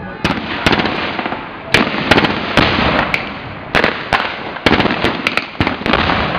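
Irregular series of sharp bangs, about fifteen in six seconds and some close together: blank gunfire mixed with pyrotechnic explosion charges in a mock battle.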